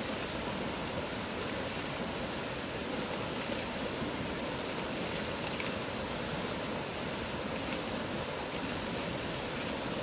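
Fast mountain river rushing over rocks: a loud, steady rush of whitewater that does not let up.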